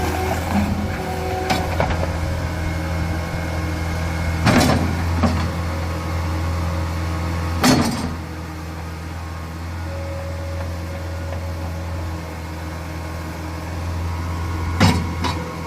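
Caterpillar 236D skid steer loader's diesel engine idling steadily, with sharp knocks or clanks about four and a half and eight seconds in and twice near the end.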